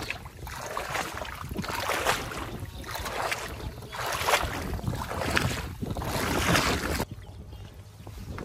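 Wind buffeting the microphone in surges about once a second, over a steady low rumble. The gusts ease off near the end.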